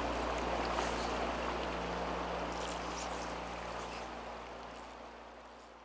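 Steady rush of flowing river water, an even outdoor noise that gradually fades out over the last few seconds.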